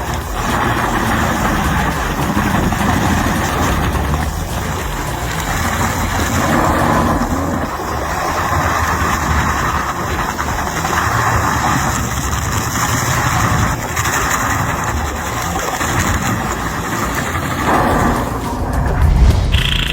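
Heavy diesel machinery engine running steadily with a rumbling mechanical noise that swells and eases every few seconds and grows louder near the end.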